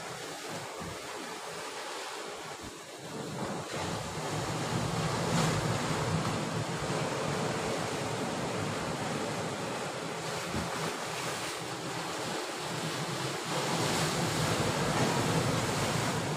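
Sea surf washing against shoreline rocks, with wind buffeting the microphone. The wash swells louder a few seconds in and again near the end.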